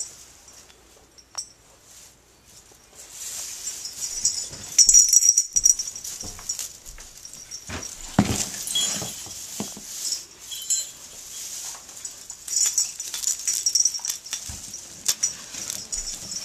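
Clear plastic sheeting and a string of Christmas lights crinkling and rustling under a playing kitten's paws, in irregular bursts with light clicks. It grows louder about three seconds in.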